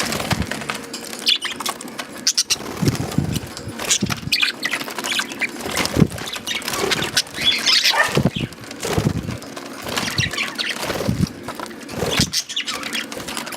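Male budgerigars chirping in short bursts every few seconds, over frequent sharp clicks from the birds eating, with occasional dull knocks.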